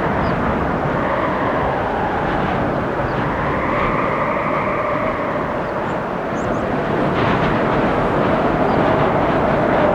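Strong wind gusting through trees: a steady roar with a whistling note that swells and fades, loudest about four seconds in, and a lower howling note coming in near the end.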